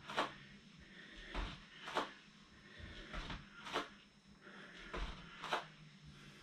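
Bare feet stepping up onto and down off a wooden plyo box during step-ups with knee lifts: short, soft sounds in pairs about every two seconds.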